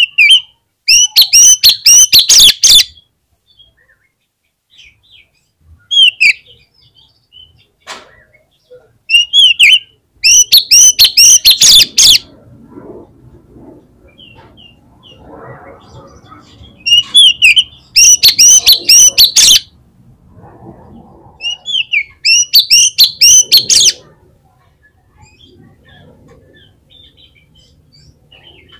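Oriental magpie-robin (kacer) singing loudly in repeated bursts of rapid, high chattering notes. There are several phrases a few seconds apart, most of them lasting two to three seconds, with a short one about six seconds in.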